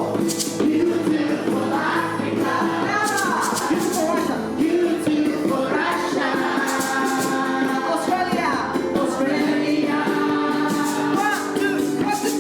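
A group of children singing a song together in unison, with hand percussion keeping the rhythm.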